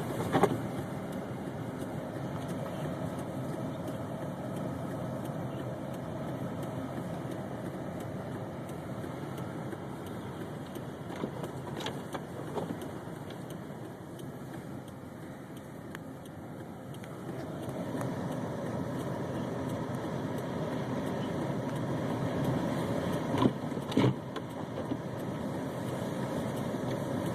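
Motor vehicle driving, its engine and road noise heard steadily from inside the cabin. The noise eases for a few seconds in the middle and grows again after about 17 seconds. A few sharp knocks are scattered through it.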